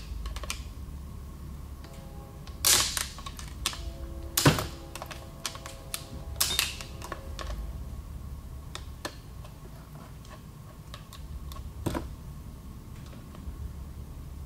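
Small metal clicks and scrapes of a hand tool working at a snap ring in a ZF 5HP24 automatic transmission clutch drum, with louder metal clanks about two and a half, four and a half, six and a half and twelve seconds in. Some of the clanks ring briefly.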